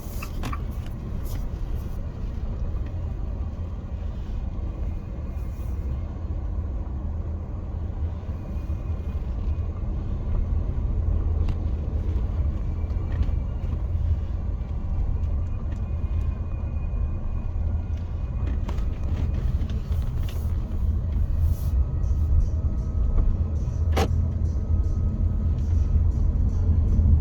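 Steady low rumble of road and engine noise inside a moving car's cabin, growing slightly louder toward the end, with one sharp click near the end.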